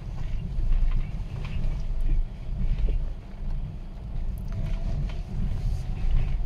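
Low, uneven rumble inside a slowly moving car on a rough, wet street: engine and road noise mixed with wind buffeting the microphone, with a few light knocks along the way.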